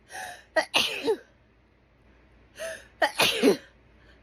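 A woman sneezing twice, about two and a half seconds apart, each sneeze a quick gasping in-breath followed by a sharp, loud burst: an allergic hay fever sneezing fit.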